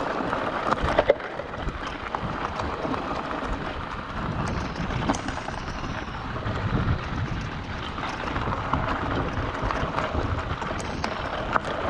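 Mountain bike rolling down a rough forest trail: tyres on stones and dirt with frequent clicks and knocks of the bike rattling over bumps, and wind buffeting the microphone.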